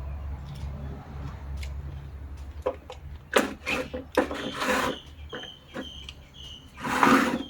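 Handling noises: a series of knocks and clicks, with two louder rustling bursts about halfway through and near the end, over a low rumble that fades after the first few seconds. Birds chirp briefly in between.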